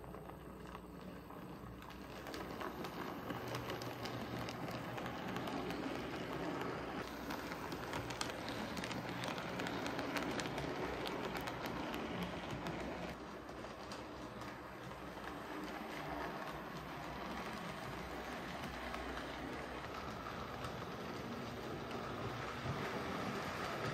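Hornby OO gauge model Bulleid Pacific locomotive pulling two coaches along the track, a steady rushing rattle of its small motor and wheels on the rails with fine clicks, picking up about two seconds in.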